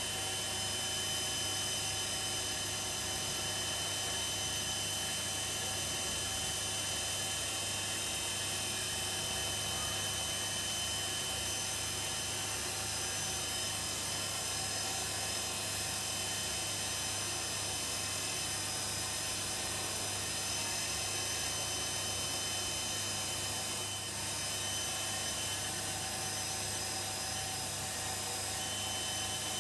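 Charnwood benchtop wood lathe running steadily at speed, spinning a pen blank, its motor giving a constant whine with a low hum underneath.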